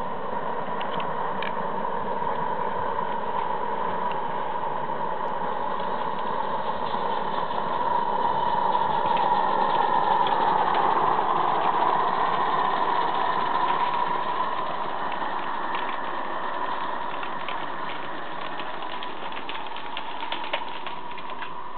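Garden-scale model train running along the track: a steady mechanical whir of the locomotive and the wheels on the rails, growing louder as it passes about halfway through and then fading, with light clicks of wheels over the rail joints later on.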